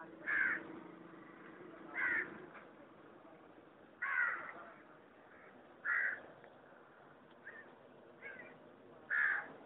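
A crow cawing repeatedly: single loud caws about every two seconds, with a couple of fainter caws between them near the end.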